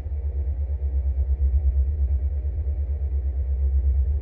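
Dark ambient music: a deep, loud low drone that flutters rapidly, with faint sustained tones above it.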